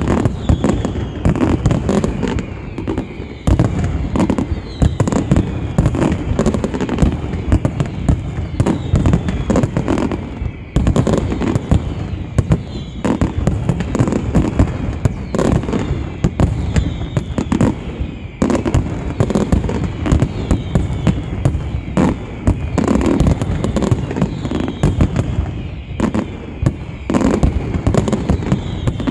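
Aerial fireworks shells from a professional pyrotechnic display: a dense, continuous barrage of bursts and crackling bangs, with whistles falling in pitch over it. The bangs let up briefly about ten seconds in.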